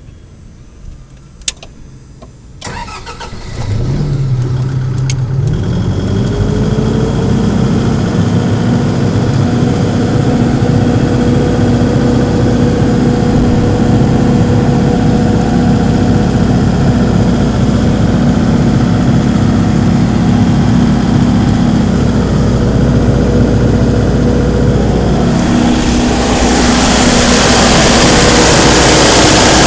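Multiquip DCA70 generator's Isuzu 4JJ1X four-cylinder diesel engine being started: a click, a brief crank, then it catches about three and a half seconds in, speeds up and settles into a steady run. A hiss of noise rises over the engine near the end.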